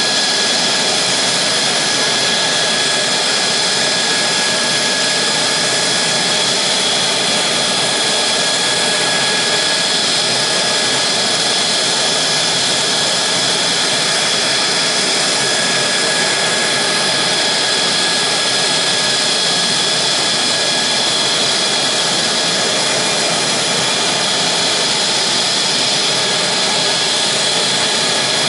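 Mitsubishi F-2 fighter's single F110 turbofan engine running steadily on the ground during an engine run-up: an even jet rush with a high-pitched whine.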